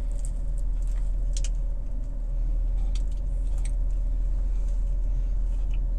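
Steady low hum inside a car, with faint, scattered crunching as a person bites into and chews a toasted croissant sandwich.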